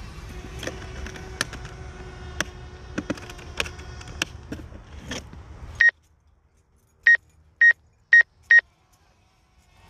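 Five short electronic beeps at one high pitch from a DJI drone's controller. The first comes about six seconds in and the other four come about half a second apart near the end. Before the beeps there is a steady outdoor background with scattered sharp clicks, and it cuts out to near silence when the beeping starts.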